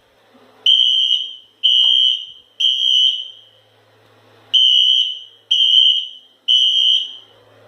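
Fire alarm horn sounding the temporal-three evacuation pattern: three high-pitched blasts about a second apart, a pause of about two seconds, then three more. The sound is very loud.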